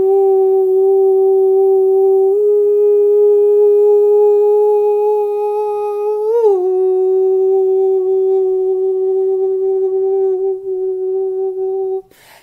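A man humming one long held note in a light-language toning. It steps slightly higher about two seconds in, wavers and drops back down a little past halfway, then holds until it stops just before the end.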